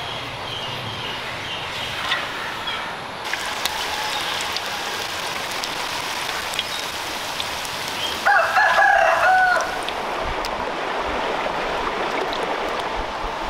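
Hot oil sizzling steadily as potato puffs deep-fry, with a rooster crowing once, loudly, a little past the middle.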